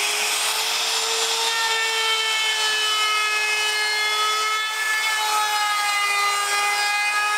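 Makita 3709 trim router running at full speed with its bit cutting along the edge of a wooden panel: a steady high-pitched whine with a layered whistle above it. The pitch sags a little around the middle as the bit takes load.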